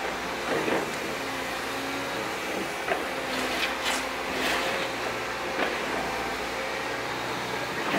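Liebherr R926 excavator's diesel engine and hydraulics running steadily as the tiltrotator bucket works a dirt slope, with brief scrapes of the bucket on soil several times, mostly in the middle, and a couple of short knocks.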